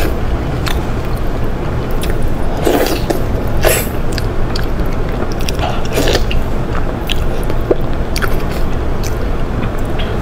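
Close-miked eating: wet chewing and lip smacks with irregular short clicks, over a steady low hum.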